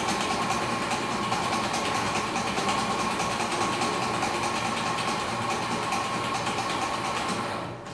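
Electric espresso coffee grinder running as it grinds beans, a steady motor whine over a gritty hiss that stops abruptly near the end.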